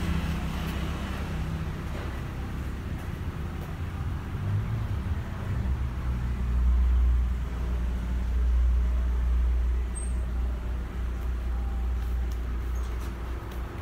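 Chevrolet sedan's engine running at low speed as the car creeps forward and stops, a steady low rumble that swells for a few seconds in the middle.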